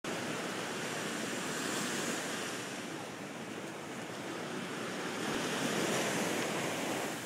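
Ocean surf washing in, a steady rush of water that swells and ebbs, loudest about two seconds in and again about six seconds in.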